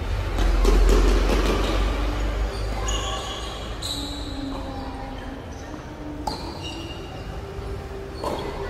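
Tennis rally in a large indoor gym: a tennis ball struck by rackets and bouncing on the court, about five sharp hits a second or more apart, echoing in the hall. Under them runs a low rumble, loudest in the first couple of seconds.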